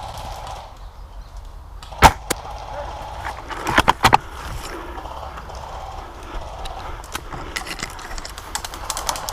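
An airsoft rifle shot: one sharp crack about two seconds in, followed around four seconds in by a quick cluster of clicks and knocks.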